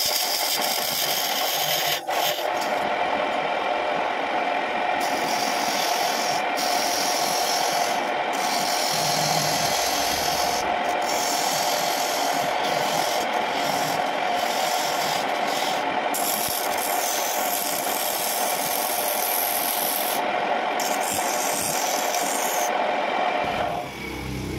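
Homemade wood lathe running with a turning chisel scraping the spinning wooden piece: a steady rasping over the lathe's constant hum. Near the end the chisel gives way to a hand held on the turning wood and the scrape briefly drops.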